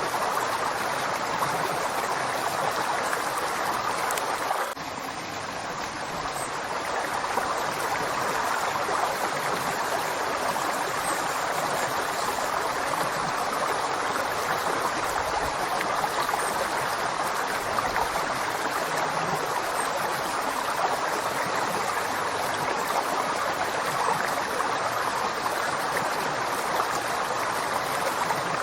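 River water flowing: a steady, continuous rush. About five seconds in the level dips suddenly, then builds back over the next few seconds.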